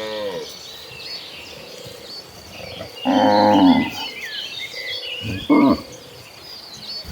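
Cattle mooing: a call trails off at the start, a loud moo comes about three seconds in and lasts nearly a second, and a short one follows about five and a half seconds in. High chirps run throughout.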